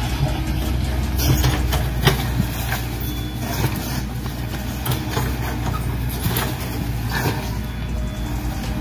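Radio-controlled Volvo excavator and dump truck models: a steady low engine-like hum, with scattered clatters of soil and stones as the bucket tips its load into the truck bed and digs back into the pile. The loudest clatter comes about two seconds in.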